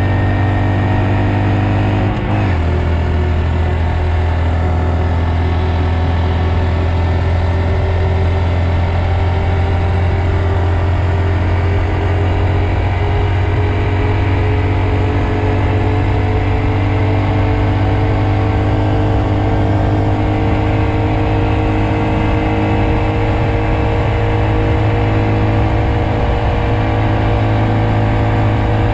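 Honda Monkey's single-cylinder four-stroke engine running steadily under way, heard from the rider's seat. About two seconds in there is a click and the engine note steps down, as at a gear change. After that the note rises slowly as the bike gathers speed.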